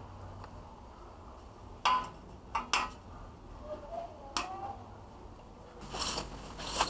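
A few short sharp clicks and taps from a gloved hand working a cable against the metal balcony railing and its fittings, followed near the end by rustling handling noise.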